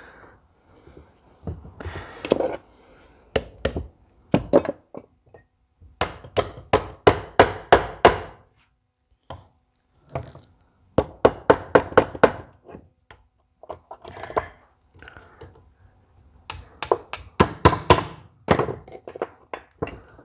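Hammer tapping on metal parts of a Ford 10 series tractor's fuel injection pump during teardown: sharp strikes in three runs, about three or four a second, with scattered single knocks between.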